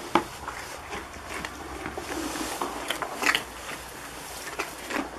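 Goats eating carrot slices from a rubber feed bowl in hay: irregular crunching, crackling and small knocks, with a sharp click just after the start and another about three seconds in.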